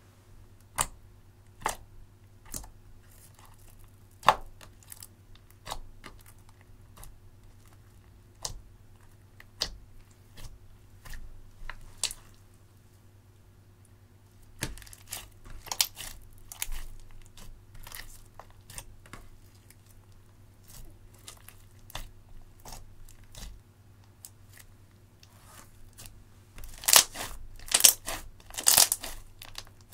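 Clear slime mixed with crushed pink eyeshadow being stretched, folded and squeezed by hand, making scattered sticky clicks and pops. Near the end, as it is squeezed in the fist, the crackling becomes a louder, denser run.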